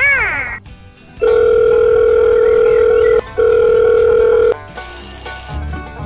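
Added cartoon-style sound effects and music: a short sliding whistle, then a long steady electronic beep held about three seconds with one brief break, then a rapid trilling ring like a telephone over a beat.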